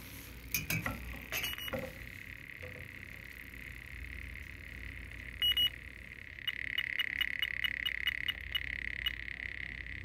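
Electronic refrigerant leak detector set to low sensitivity, sounding a steady high tone with a few clicks near the start. About six seconds in it starts ticking steadily, about three times a second, as it picks up R22 leaking from the evaporator where the bottom capillary tube goes in.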